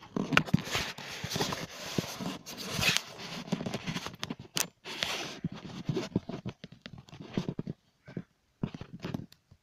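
Handling noise from a Snap Circuits kit's cardboard box being opened and its parts tray moved: scraping and rustling with many small clicks, thinning to scattered clicks and knocks in the second half.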